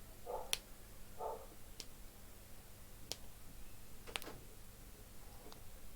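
A few sharp, isolated clicks spread over quiet room tone, about one every second or so, with two short faint sounds in the first second and a half.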